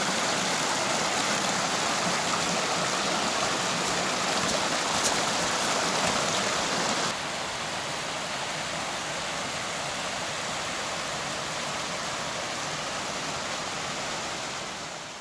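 Running water of a mountain stream, a steady rush that drops a little in level about seven seconds in and fades out near the end.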